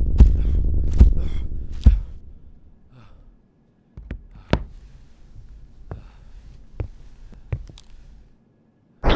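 Film sound design: a low rumble under a regular thump about every 0.8 s, like a slow heartbeat, fading out after about two seconds. Faint, irregular ticks and taps follow, then a sudden loud noise right at the end.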